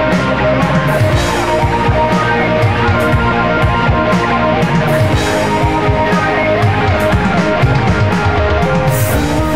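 Rock music with electric guitar and a drum kit playing a steady beat.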